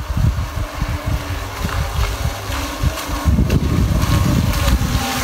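Uneven gusts of wind rumbling on the microphone, over the steady hum of a small four-propeller remote-controlled fishing boat's motors as it runs back across the water.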